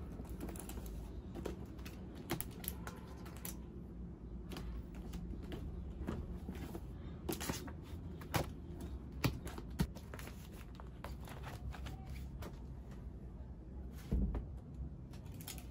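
Spiral-bound books and notebooks being picked up, stacked and set down on a desk: scattered light knocks, taps and paper rustles, with a few sharper clacks past the middle and a heavier thump near the end, over a steady low hum.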